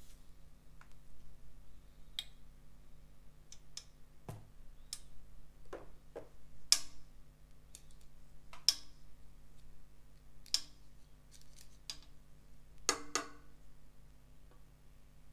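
Scattered sharp clicks and taps of kitchen utensils: a plastic squeeze bottle set down and a pair of plastic spatula tongs handled and clicked shut. About a dozen clicks come at irregular intervals, the loudest a couple of seconds apart.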